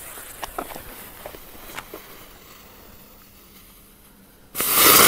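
A few faint scattered ticks, then about four and a half seconds in a small firework lit on the canvas flares up suddenly with a loud, steady hiss.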